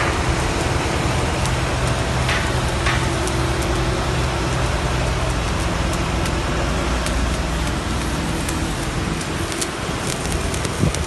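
Electric arc welding on a steel pipe joint: the arc gives a steady crackling hiss, over a low steady hum.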